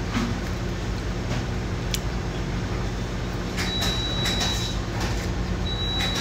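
Convenience-store room tone: a steady low hum with scattered light clicks and rustles, and a high electronic beep held about a second, twice, in the second half.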